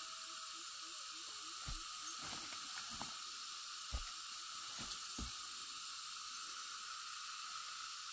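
Dry fern litter and loose soil being scraped up and thrown down a slope by hand: several soft thuds and rustles over a steady high hiss, the strongest thud about four seconds in.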